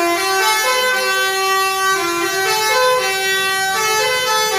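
Bus telolet horn of the basuri type playing a tune: a loud string of held horn notes that step up and down in pitch without a break.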